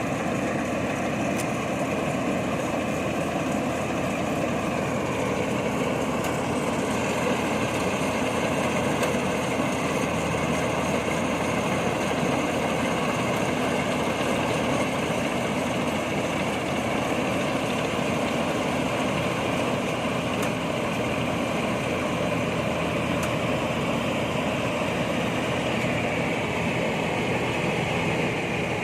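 INARI rice combine harvester running steadily, its engine and machinery giving a constant mechanical drone.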